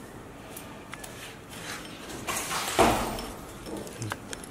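Chain of clamp links clicking and sliding as it is fed by hand onto a sprocket, with one louder rattling scrape about two and a half seconds in and a few small clicks near the end.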